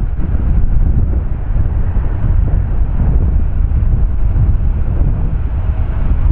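Boeing 747-8's four GEnx jet engines giving a steady deep rumble, mixed with wind buffeting the microphone.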